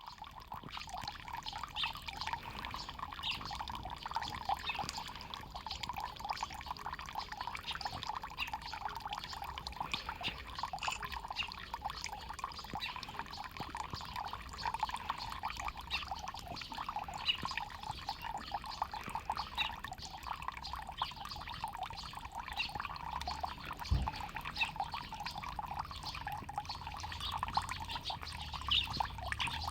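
Shallow water trickling and splashing steadily over stones, as in a small stream. There is a brief low bump about two-thirds of the way through.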